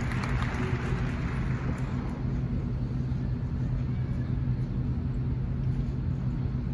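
Steady low hum and rumble of a large indoor arena's background noise, with a faint crowd murmur fading out over the first couple of seconds.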